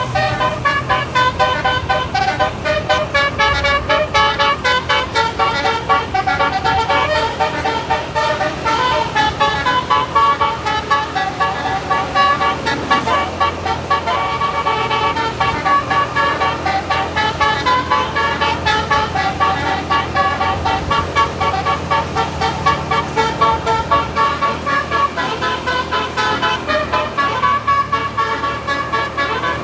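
A tour bus's Basuri 'telolet' multi-tone musical horn playing a fast tune of short, stepped notes again and again.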